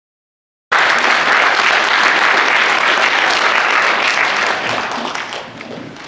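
Audience applauding: dense clapping that cuts in abruptly about a second in, holds steady, then dies away over the last second and a half.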